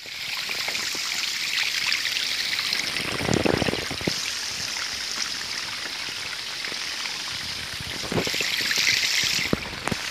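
Rainwater runoff rushing in a shallow stream over pavement during a downpour: a steady splashing hiss that swells louder twice, about a third of the way in and near the end.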